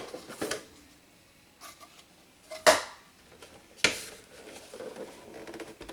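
Sharp plastic clacks and knocks as a Sharp 4G100 boombox's battery compartment is opened and handled: three hard clacks, the loudest a little before halfway, with lighter rubbing and rattling between.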